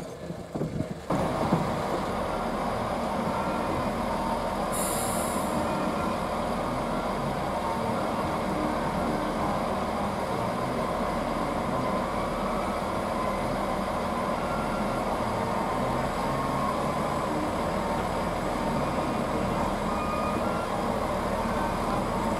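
Class 165 diesel multiple unit standing at the platform with its underfloor diesel engines idling steadily. A brief hiss of air comes about five seconds in.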